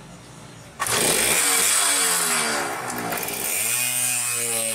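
Small moped engine starting: it catches suddenly about a second in, revs up and down in pitch, then holds a steady fast run.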